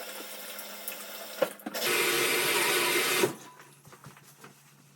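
Water running from a kitchen tap into a sink. It gets louder from about two seconds in and is shut off abruptly a little after three seconds, followed by a few faint clicks.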